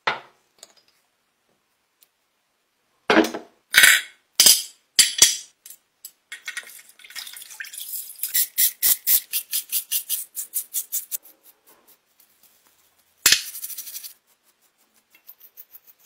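Handling and cleaning sounds of a glass perfume bottle: a few sharp glass knocks and clinks, then a run of quick, even strokes at about four a second, and a short burst of noise about three seconds before the end.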